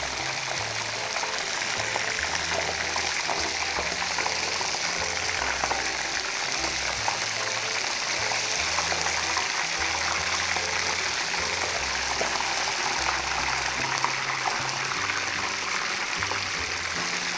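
Hot oil sizzling and bubbling steadily as floured, egg-coated scampi and prawns deep-fry. A slow bass line of background music runs under it.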